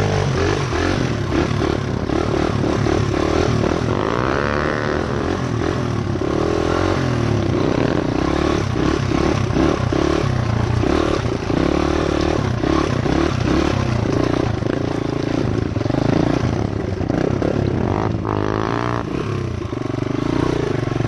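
Honda XR100 dirt bike's single-cylinder four-stroke engine running steadily, with its pitch sweeping twice.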